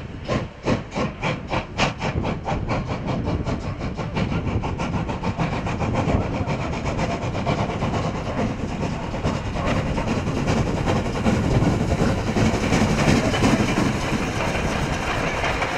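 Steam locomotive 16.27 running fast with its tender. Its exhaust beats come about four a second at first, then quicken until they blend into a continuous rush. The rush is loudest near the end as the engine passes close by.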